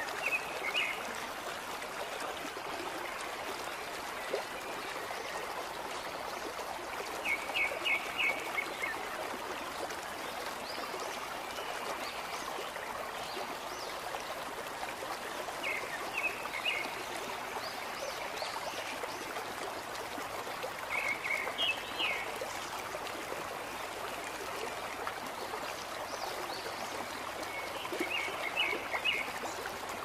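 Steady rush of a flowing stream, with a small bird giving five short runs of quick chirps spread several seconds apart.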